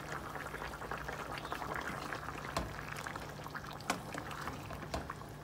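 Tomato sauce of a meatball and potato stew bubbling in a pot on the stove, with many small pops and spits over a low steady hum.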